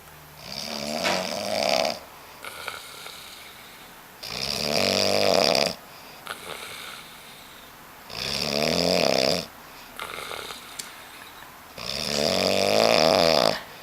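A man snoring in his sleep: four loud snores, each about a second and a half long, coming about every four seconds.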